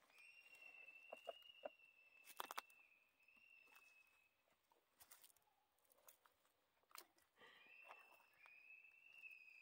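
Very faint outdoor quiet: a few soft crackles of feet on dry leaf litter, with a thin, faint high tone held for several seconds at the start and again near the end.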